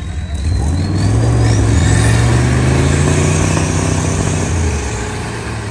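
Off-road 4x4's engine accelerating hard under load, rising in pitch and loudness about a second in, holding, then easing off near the end. A high whine climbs in pitch over the first two seconds.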